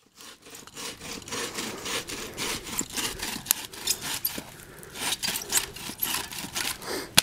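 Hand saw cutting firewood, a rapid run of repeated back-and-forth strokes through the wood.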